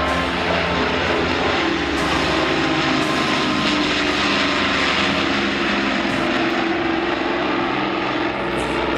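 Avro Lancaster's four Rolls-Royce Merlin V12 piston engines and propellers in flight, giving a steady, even drone.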